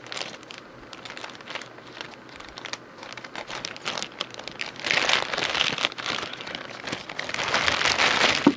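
Packaging crinkling and rustling as it is handled and opened, with scattered crackles and two louder stretches of rustling, about halfway through and toward the end, followed by a short knock.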